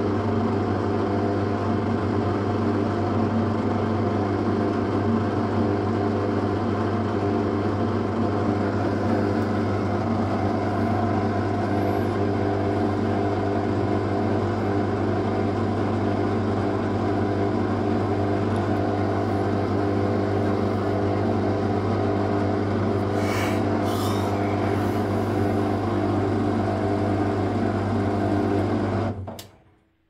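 Asko 12605 front-loading washing machine running with a steady, unchanging hum. It cuts off abruptly about a second before the end, leaving near silence.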